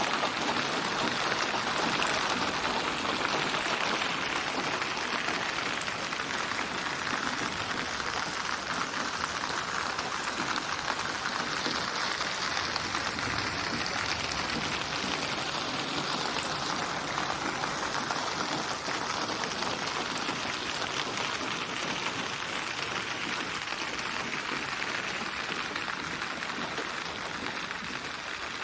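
Steady rain, an even hiss of many small drops, getting a little softer near the end.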